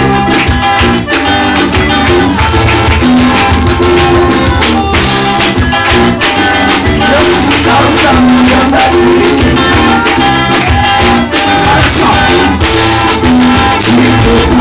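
Loud gospel band music with a steady beat and rhythmic percussion.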